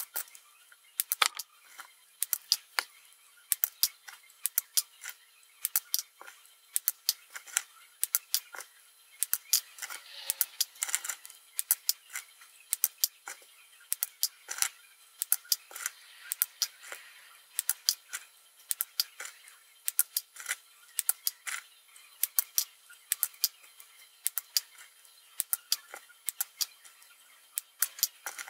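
Flush cutters snipping through the wire leads of 5 mm LEDs: sharp, short clicks, often two in quick succession, a couple of times a second.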